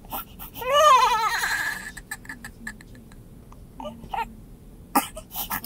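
Newborn baby crying: one long cry about a second in, pitched up then falling away, then a few short weaker cries and a sharp click near the end.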